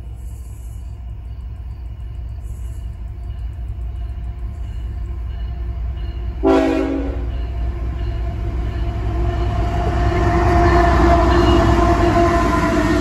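Diesel freight locomotive of a CSX train approaching, its low rumble building steadily, with one short horn blast about halfway through. Near the end the engine and wheels are loud as the locomotive passes close by.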